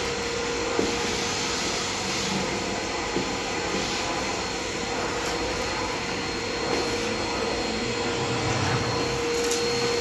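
Canister vacuum cleaner running steadily, its motor giving a steady whine over the rush of air as the nozzle is worked along a hard floor.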